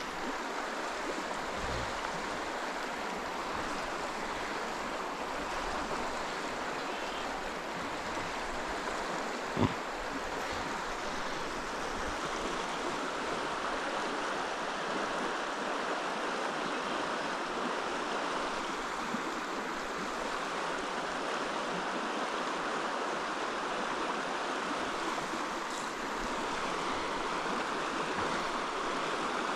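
Stream water flowing steadily over rocks, an even rushing hiss. There is one sharp knock about ten seconds in.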